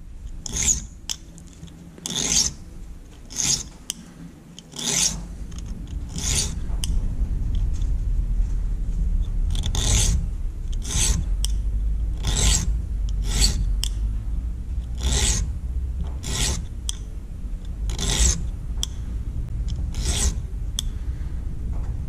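A small file rasping across the teeth of a Victorinox Hiker Swiss Army knife's saw blade held in a vise, sharpening the teeth, with about one stroke a second. A low rumble comes in about five seconds in.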